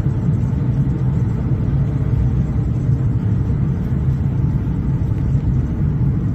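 Steady low road and engine rumble heard from inside a car's cabin while it cruises along a highway.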